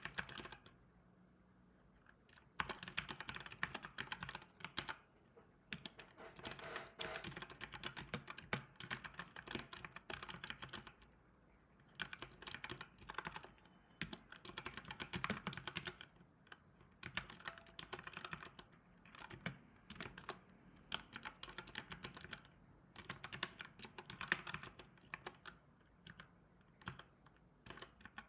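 Typing on a computer keyboard: bursts of rapid key clicks separated by brief pauses.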